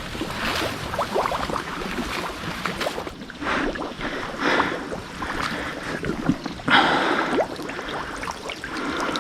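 Pond water sloshing and splashing in irregular swishes, with wind on the microphone.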